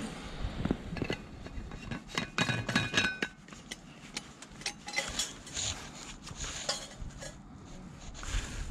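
Stainless-steel vacuum flask and its metal cup being handled: a run of metallic clinks with short ringing tones in the first few seconds, then lighter clicks and taps as the stopper is screwed back into the flask.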